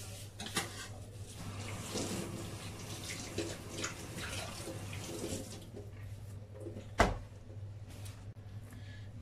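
A hand wiping water across a wet granite countertop in quick rubbing swishes, clearing off leftover flour. A single sharp knock comes about seven seconds in.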